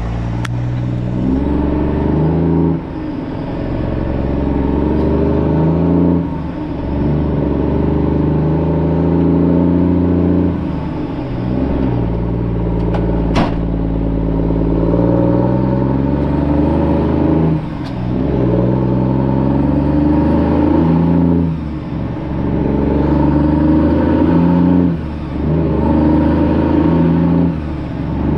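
Straight-piped diesel truck engine, heard from inside the cab with the windows down, pulling hard up through the gears: the revs climb and drop at each of about seven upshifts. A single sharp click sounds about halfway through.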